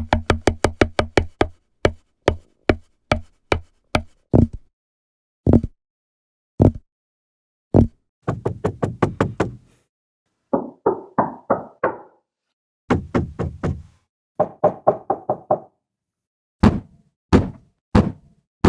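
Knocking on a door in a string of changing patterns: a fast run of raps at the start, then slower evenly spaced knocks, several quick rattling runs through the middle, and three spaced single knocks near the end.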